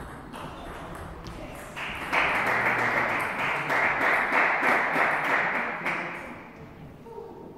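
Small crowd of spectators clapping for about four seconds, starting about two seconds in, applause for a point won in a table tennis match.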